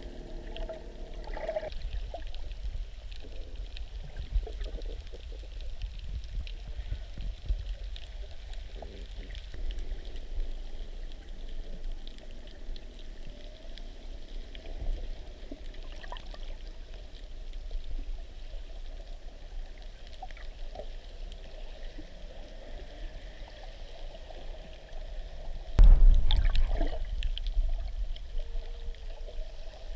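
Muffled water noise picked up by a camera held underwater while snorkeling: a steady low rumble with faint scattered crackles, and a louder rush of water near the end.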